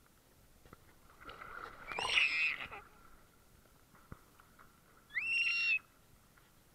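One-year-old baby squealing with delight twice: a longer excited squeal about two seconds in, then a high squeal that rises and holds briefly near the end.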